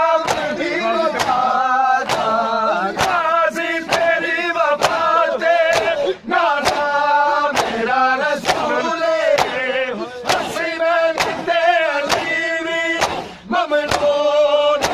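Men's voices chanting a Shia noha (mourning lament) in unison, with the slaps of hands on bare chests (matam) keeping a steady beat a little under two a second.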